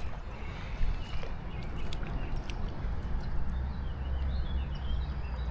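Outdoor riverside ambience: a steady low rumble with faint bird chirps about four to five seconds in and a few scattered small clicks.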